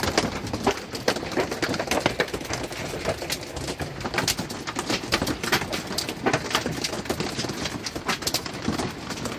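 Hail pelting the roof and walls of a truck camper, heard from inside: a dense, irregular patter of sharp hits over a steady hiss.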